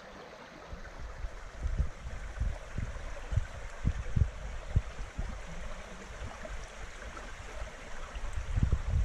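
Small creek running steadily, with irregular low thuds over it.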